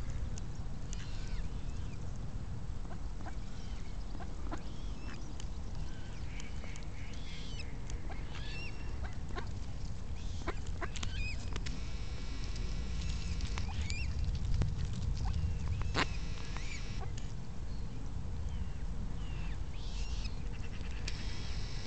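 Mallards quacking on and off at close range, short calls scattered throughout with a busier stretch in the second half and one sharp loud call a bit past the middle, over a steady low rumble.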